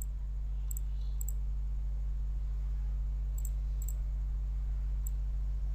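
Steady low hum under about half a dozen faint, sharp computer mouse clicks.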